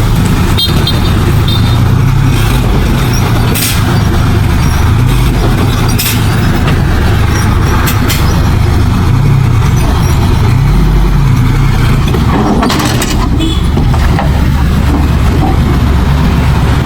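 Heavy earthmoving machine's diesel engine running under load, its pitch rising and falling as it works, with a few sharp metallic knocks.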